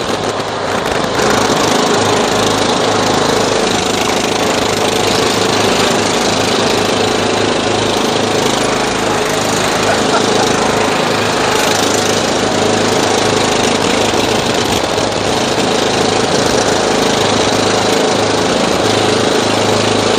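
Riding lawn mower engines, one of them a Cub Cadet's, running steadily as the mowers are driven.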